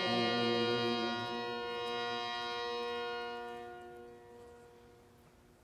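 A held drone chord of several steady notes, with no wavering in pitch, dying away about four seconds in under the church's reverberation.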